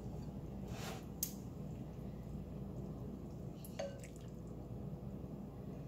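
Faint drips and splashes of chicken noodle soup being ladled into a bowl, with a few soft knocks of the ladle against the bowl, over a low steady hum.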